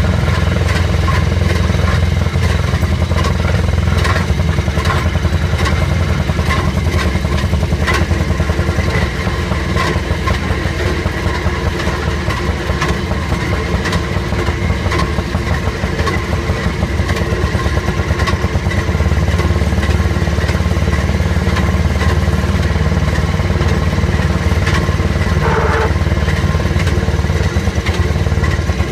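Small engine of a Southern Railway M9 track speeder running steadily as the car travels along the line, with irregular clicks and clacks from the wheels and car body. A brief higher tone sounds about 25 seconds in.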